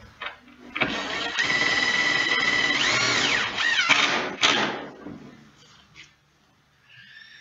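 Cordless drill driving a wafer screw through a metal gable mounting hook into a wooden gable: the motor runs at a steady whine, its pitch rises and falls near the middle as the screw seats, and it stops with a sharp click about four and a half seconds in.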